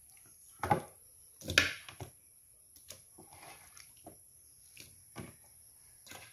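Two loud knocks about a second apart, then a few lighter taps and clicks: raw chicken pieces being put into an aluminium cooking pot.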